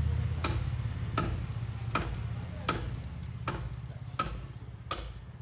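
Axe chopping into a tree trunk: seven evenly paced blows, about one every three quarters of a second, each a sharp knock with a brief ring, over a low steady hum.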